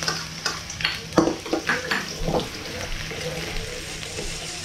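Chopped red onion sizzling in hot oil in a stainless steel wok as it is sautéed, with a metal spoon tapping and scraping against the pan.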